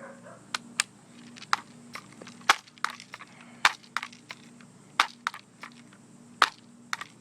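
A series of irregular sharp clicks and crunches, about nine in all, the loudest about two and a half seconds in: handling and movement noise between BB gun shots.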